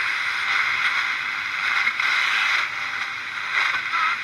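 Radio receiver giving out a steady static hiss, with a brief faint warbling whistle near the end.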